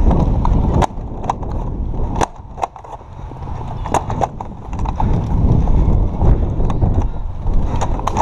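Heavy rumble of wind and movement on the microphone, with a string of irregular sharp clicks and clacks, about one or two a second, from foam dart blasters being primed and fired.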